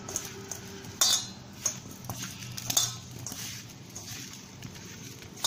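A hand mixing spice-coated raw mango pieces in a stainless steel bowl: a soft, continuous shuffling of the pieces, with a few sharp knocks and clinks against the bowl, the clearest about a second in. The pieces are being tossed in a little oil so that the oil and masala stick to every piece.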